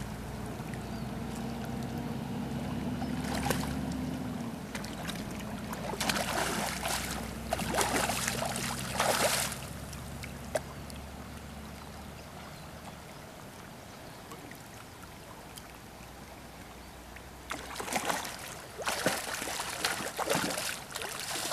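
Hooked Atlantic salmon splashing and thrashing at the surface in the shallows by the bank, in irregular bursts, over the steady rush of the river. A low steady hum runs underneath and fades out about twelve seconds in.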